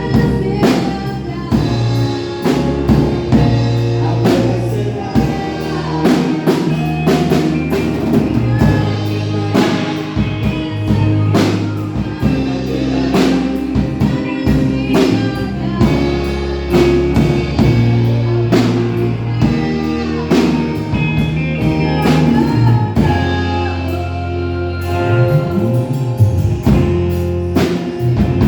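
A song with singing over drums, bass and guitar, a steady beat throughout.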